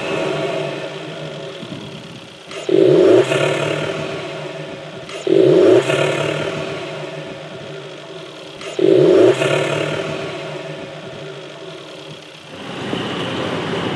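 Turbocharged 1.2 TSI four-cylinder petrol engine breathing through an MST Performance induction kit, revved in three sharp throttle blips about three seconds apart, each a loud burst of intake noise that falls away as the revs drop. Near the end it gives way to a steadier engine sound.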